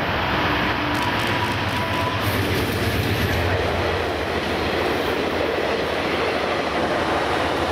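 VIA Rail GE P42DC diesel locomotive passing close below at speed, followed by its passenger cars, a loud steady rush and rumble of wheels on rail.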